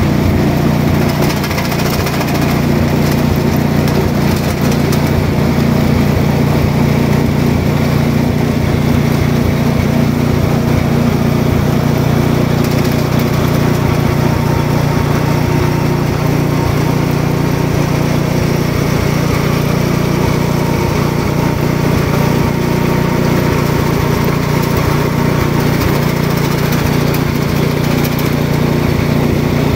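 Red SK-15M indigo leaf-sorting machine running steadily, its motor giving a continuous low drone as the leaves pass through.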